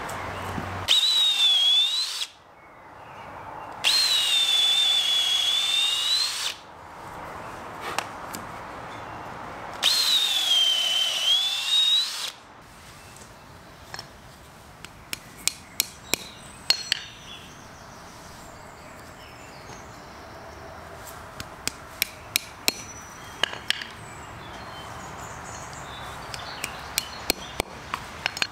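Power drill boring three holes into a chestnut log: three bursts of motor whine that sag in pitch as the bit bites into the wood and recover as it clears. These are followed by clusters of light sharp taps as mushroom-spawn dowels are tapped into the fresh holes.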